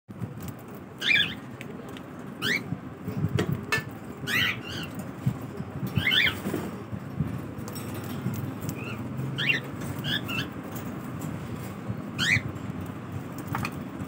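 A flock of cockatiels giving short chirping calls, one every second or two, with wing flutters and rustling among the seed on the cage floor.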